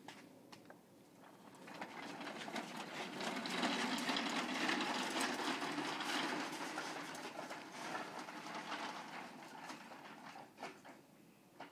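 Hard plastic wheels of a toddler's ride-on toy car rolling over rough asphalt, a gritty rattling rumble. It builds over the first couple of seconds, is loudest around the middle and fades away, with a couple of sharp clicks near the end.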